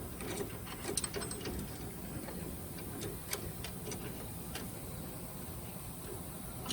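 Metal roller chain being handled and fed through its sprockets: sparse, irregular clicks of the links over a low hum.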